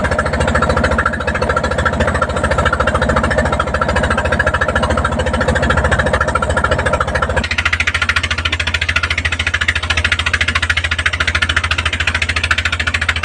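Engine of a wooden fishing boat running steadily under way, a fast even chugging. About seven and a half seconds in the sound shifts to more hiss and less of the middle tone.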